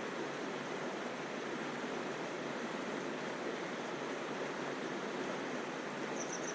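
Mountain stream water rushing over rocks, a steady even rush. Three short high chirps near the end.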